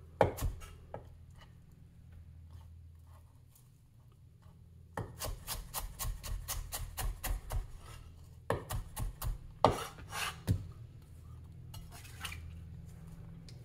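Big vintage Chinese cleaver chopping red onion on a wooden cutting board: a hard chop at the start, then two quick runs of chops about three to four a second, with quiet gaps between.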